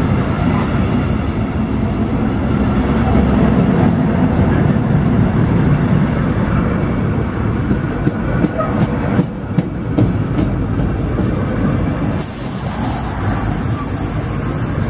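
Intermodal freight wagons rolling past close by: a steady heavy rumble of wheels on rail, with sharp clacks over the rail joints. A high hiss comes in about two seconds before the end.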